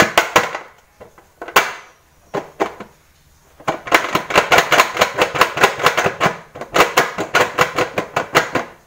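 Silicone soap mold of freshly poured soap rapped repeatedly on a metal tray to settle it: quick knocks about five a second, thinning to a few scattered knocks about a second in, then rapid again from about halfway to near the end.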